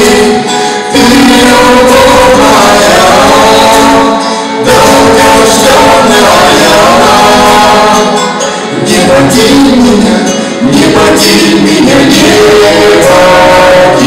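Mixed vocal quartet of two women and two men singing a song together into microphones, with brief pauses between phrases about four times.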